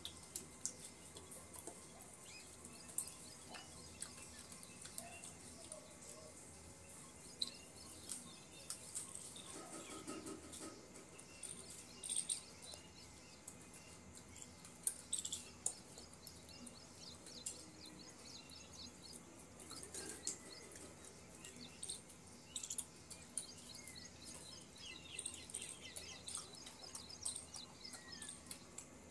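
Faint, scattered clicks and taps of a baboon handling and chewing fruit pieces from a plastic basin, with birds chirping in quick high trills in the background.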